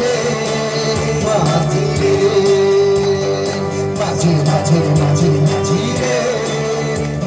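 Live worship song sung by a group of women's and men's voices through microphones over a Yamaha electronic keyboard, amplified by a PA speaker, with a steady beat.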